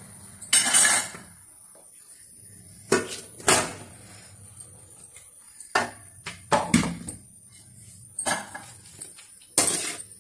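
A metal ladle scraping and knocking against the inside of a metal pressure cooker while stirring cooked chicken biryani: about ten irregular clanks and scrapes, the loudest about half a second in and again about three and a half seconds in.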